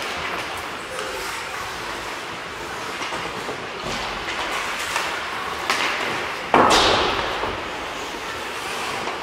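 Ice hockey in an echoing rink: a steady hiss of skating and stick play with a few sharp knocks, and about six and a half seconds in a loud bang that rings on through the hall.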